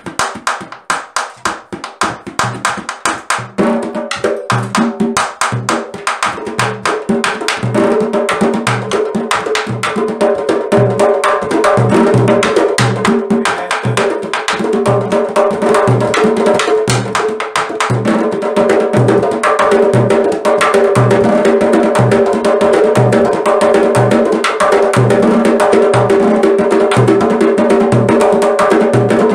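A small candombe drum ensemble playing together in rhythm, each drum struck with one hand and one stick, with sharp stick clicks on the wooden shells and a steady low bass beat. The playing starts sparse and fills out and grows louder over the first several seconds.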